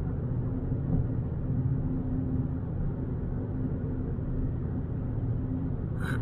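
Fiat Bravo 1.6 heard from inside the cabin while cruising on a snow-covered road: a steady low drone of engine and tyre noise with a constant hum, and a short click at the very end.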